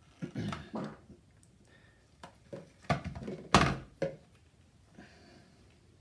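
Irregular knocks and thunks from handling an electric hand mixer and its beaters in a plastic cup of paint, as the beaters come out of the mixer and the cup; the mixer motor is not running. A short cluster near the start, then several more, the loudest about three and a half seconds in.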